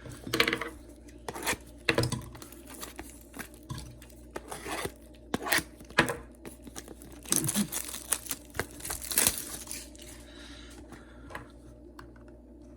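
Foil booster pack wrapper being crinkled and torn open, a string of sharp crackles with a longer stretch of tearing about seven to nine seconds in.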